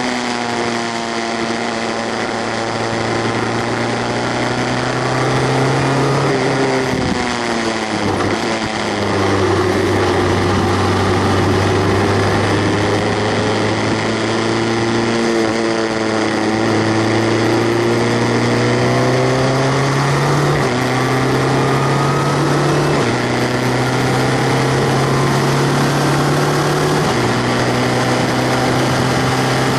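Formula race car's 2.0-litre four-cylinder engine heard close up, with wind rush. It slows with a falling pitch through a corner, then pulls hard through the gears as the car accelerates, the pitch rising in steps at each gear change.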